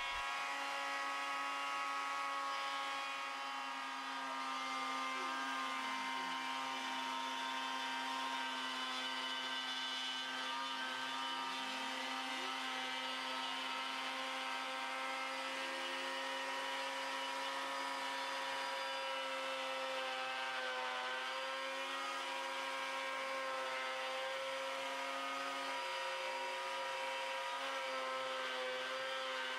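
Wood router on a homemade CNC machine running steadily with a high, even motor whine while it routes the outline of a wooden guitar body, with faint tones sliding up and down as the machine moves.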